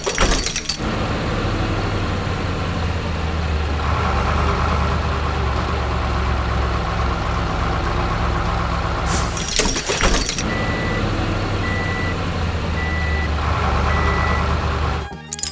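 Heavy truck engine running steadily, with a reversing beeper sounding four times, about one beep a second, in the second half. Two short bursts of noise break in, one at the start and one about ten seconds in.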